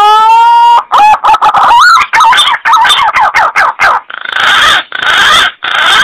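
Recorded punai (green pigeon) lure call. A whistle ends about a second in, a quick run of wavering whistled notes follows, and it finishes with three harsh rasping bursts.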